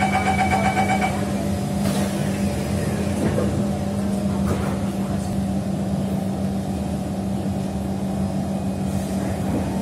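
Kawasaki Heavy Industries C151 electric multiple unit train running: a steady low electrical hum over rumbling noise, with a rapid pulsing beep during the first second.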